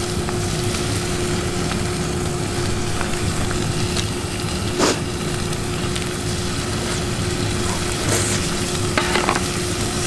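Pork belly sizzling steadily in a frying pan, over a steady low hum. A single sharp click comes about halfway through.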